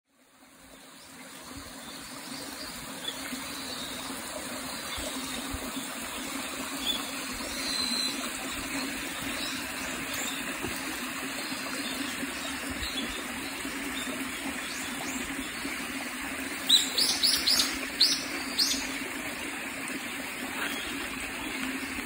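Mountain stream running steadily, fading in over the first two seconds, with small birds chirping faintly. A few seconds before the end, a bird gives a quick run of loud, high chirps.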